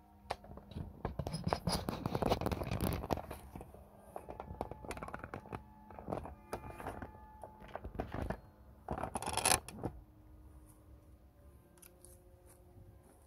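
Scraping, scratching and clicking of a camera being handled and fixed in place close to the microphone, heaviest a couple of seconds in, with one louder sharp scrape about nine seconds in.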